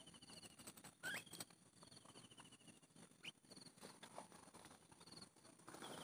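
Faint small-bird calls at a bird-trapping net: repeated quick pulsed trills, some short and high, others longer and falling slightly in pitch, with a couple of quick rising squeaks and a brief cluster of clicks about a second in.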